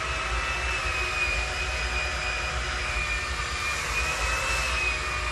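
Handheld hair dryer blowing, a steady rush of air with a high whine that wavers slightly in pitch.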